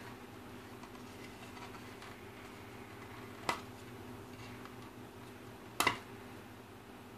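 Sharp clicks of a trail camera's plastic housing being handled and pried apart: one click about three and a half seconds in and a quick double click near six seconds, over a steady low hum.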